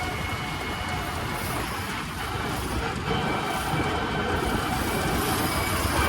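Preet 987 combine harvester's diesel engine running steadily while the machine is under way, a low drone with a faint steady high whine, growing slowly louder toward the end.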